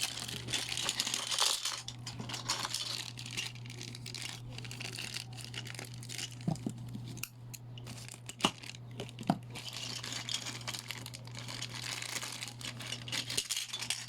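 Crinkling and rustling of packaging being handled, with scattered clicks and a few sharper knocks of small plastic pieces about halfway through.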